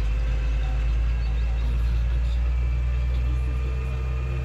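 Mercedes-Benz MB-trac 1300's six-cylinder diesel engine running steadily while driving, heard inside the cab: a constant low drone with a steady, faint higher whine over it.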